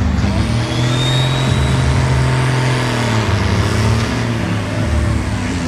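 Farm tractor engine running hard at high revs. Its pitch holds steady, dips a little about three seconds in, then picks up again.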